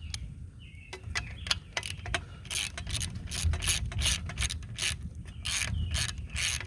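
12 mm socket ratchet wrench loosening a bolt on the moped's exhaust. A few single clicks come first, then quick bursts of ratcheting clicks, two or three a second, with each back-swing of the handle in the second half.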